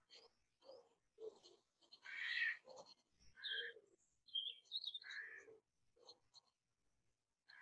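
Stick of charcoal scratching across sketchbook paper in short, uneven strokes, with a few faint high chirps about halfway through.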